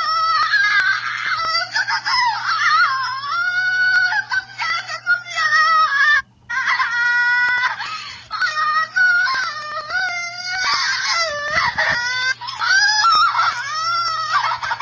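A woman crying and wailing in high-pitched, wavering cries, with a short break about six seconds in. She is crying out in pain, a live octopus clinging to her face.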